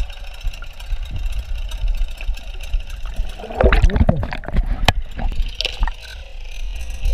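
Honda BF 9.9 four-stroke outboard heard underwater as a steady low rumble at its propeller. About halfway through there is a loud stretch of bubbling and gurgling as the propeller churns air bubbles through the water, with a sharp click near the end of it.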